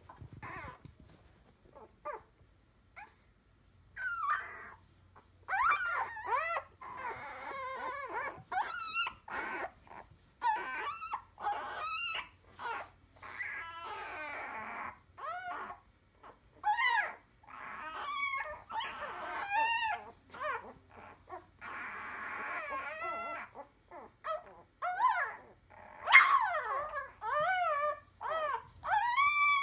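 Week-old Entlebucher puppies whimpering and squeaking: short, arching high-pitched cries, sparse for the first few seconds, then coming almost without pause, loudest near the end.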